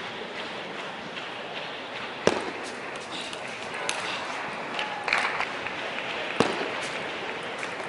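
Table tennis rally: a series of sharp clicks as the celluloid ball is struck by rackets and bounces on the table. The loudest comes about two seconds in, over a steady hall hubbub.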